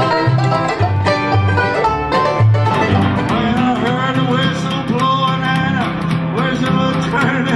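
A string band playing a country-style tune: plucked upright bass notes under mandolin and guitar, with a man singing from about three seconds in. The music starts abruptly at a cut.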